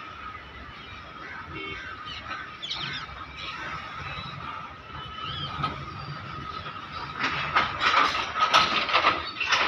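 Loaded BOXN HL freight wagons rolling past on the rails, with a steady thin high tone over a low rumble. From about seven seconds in, a rapid clatter of wheels over rail joints grows louder.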